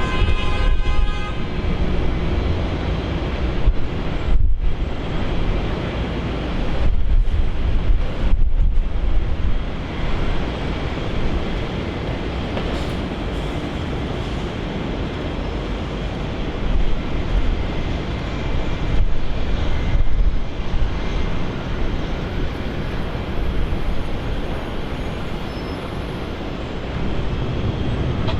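Loud, steady rushing roar of a jet airliner's engines, with wind buffeting the microphone.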